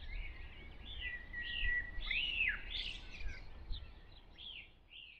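A songbird singing a run of short notes that rise and fall in pitch, with one held note about a second in, over a faint low rumble; the song fades away near the end.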